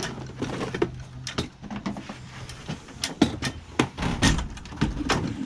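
A plastic pet carrier being handled and closed up, giving a run of irregular knocks and clicks.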